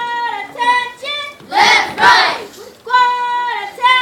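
A group of children singing a short phrase in unison on steady held notes, followed by two loud group claps, and the pattern repeating.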